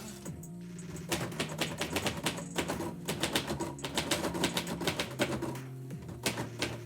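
Typewriter keys striking in quick runs with short pauses between them.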